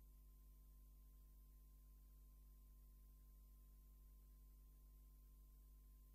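Near silence: a faint, steady electrical hum and hiss.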